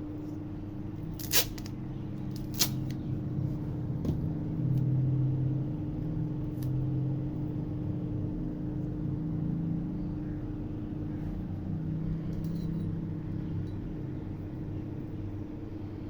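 A 12-volt DC water pump motor, its commutator just cleaned of carbon, running on a computer power supply for a test: a steady hum with a low drone that wavers and swells for a few seconds. Two sharp clicks come a little over a second in and again about a second later.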